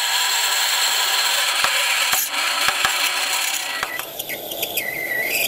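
A twist drill cutting into stainless steel bar spinning in a mini lathe: a steady high hissing rasp with a few sharp clicks as chips break. About four seconds in it gives way to a wavering high squeal of a tool cutting inside the bore.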